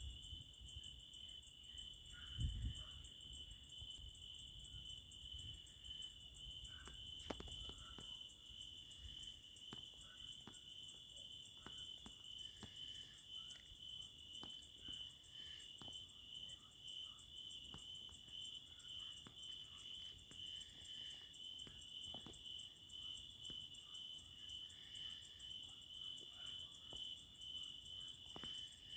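Crickets trilling steadily and faintly in a night-time outdoor ambience, a continuous high pulsing chirr. There is one soft low thump about two and a half seconds in.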